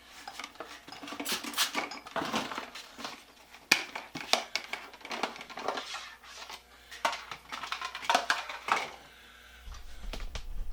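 Steel wrench parts clinking and rattling against each other and a container as they are set into a degreaser bath: irregular sharp metallic clinks and knocks, with a low hum coming in near the end.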